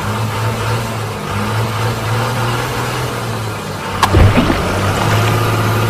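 A vehicle engine running steadily at one pitch, a low drone with overtones. About four seconds in there is a sharp knock with a quick falling sweep, and the engine gets a little louder after it.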